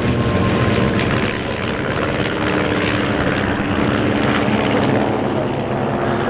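A formation of Van's RV single-engine piston aircraft flying past, their engines and propellers making a steady drone with several overlapping pitches that drift slightly.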